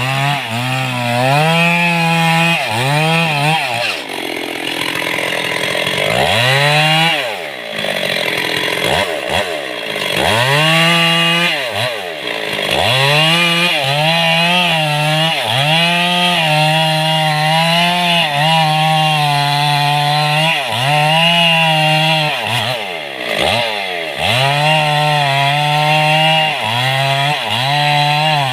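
Stihl two-stroke chainsaw cutting mahogany wood, run hard for a second or two at a time. The engine note repeatedly drops off and climbs back up as the throttle is eased and squeezed again.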